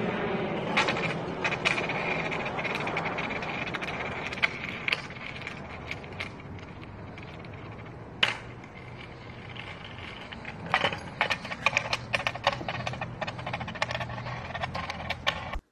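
Skateboard wheels rolling over concrete, a steady rolling rumble with sharp clicks and rattles that come thick and fast in the last few seconds.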